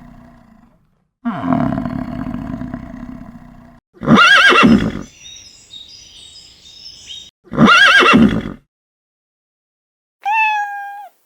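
Animal calls in a row, with short silences between them: the tail of a deep roar, then a second roar lasting a couple of seconds. Next come two loud horse whinnies, about three and a half seconds apart, with faint high chirping between them, and one short high call near the end.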